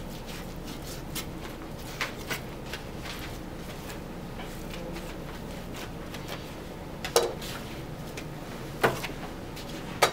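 Quiet knife work on beef on a wooden cutting board, then three sharp knocks as cuts of beef and the butcher's knife are set down on the board, over a steady low hum.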